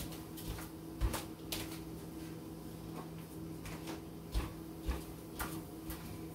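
A handful of knocks and clicks off-camera as someone rummages in a kitchen cupboard, the loudest about a second in, over a steady low hum.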